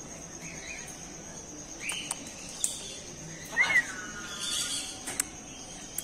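Parrots giving a few short, separate squawks: one about two seconds in and a louder one a little past halfway, with a few faint clicks between them.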